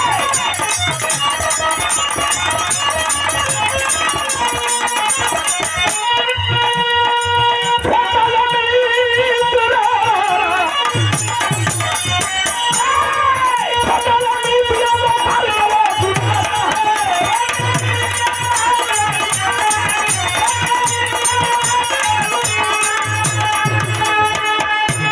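Instrumental interlude of birha folk music: a bending melody line over a hand-drum rhythm and jingling rattle-type percussion.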